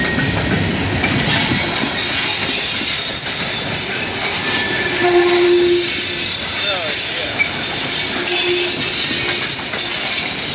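Canadian Pacific freight train of covered steel-coil cars rolling past close by: a steady rumble and clatter of the wheels on the rails, with thin high wheel squeals coming and going and a short lower squeal about five seconds in.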